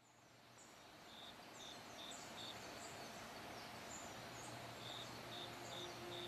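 Faint forest ambience fading in: birds calling over a steady hiss, one giving two runs of four short, even high notes, with quick high chirps in between. Soft music begins to fade in near the end.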